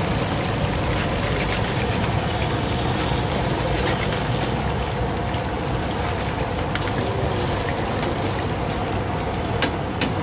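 Hot oil sizzling and bubbling steadily around battered chicken pieces deep-frying in a large wok, over a steady low hum. Near the end come a few sharp clicks of the metal skimmer against the wok.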